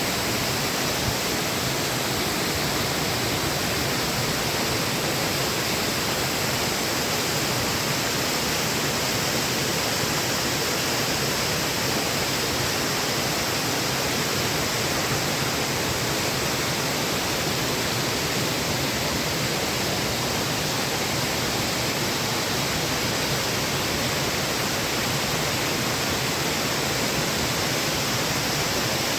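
Waterfall: water falling and splashing, a steady, even rush.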